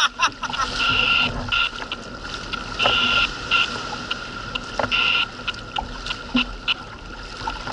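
Sea water sloshing and splashing against a sit-on-top kayak's hull as it is paddled through choppy water, with short hissing bursts of spray every second or so and wind on the microphone.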